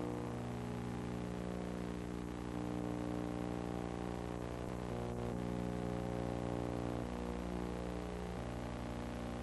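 Steady electrical hum with a stack of even overtones and a fast low flutter, unchanging throughout; no sound of the filmed scene itself.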